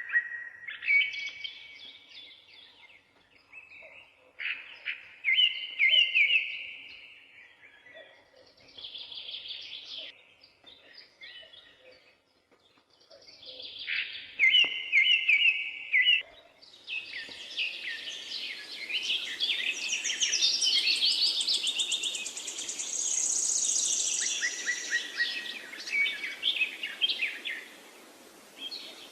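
Songbirds chirping and singing in short repeated phrases, with a denser chorus of overlapping calls building up about halfway through and lasting most of the rest.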